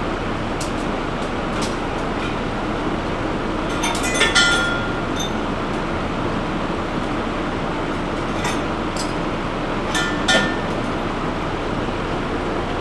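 Metal clinking as mechanics handle parts at the front of a car on a rolling-road dyno: a cluster of ringing clinks about four seconds in and another about ten seconds in, with a few lighter ticks. Under it runs a steady mechanical hum.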